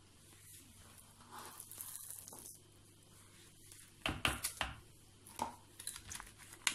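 Quiet handling of a stick blender, not running, and a spoon in a plastic mixing bowl: a soft scraping about a second and a half in, then a few light knocks against the bowl from about four seconds on.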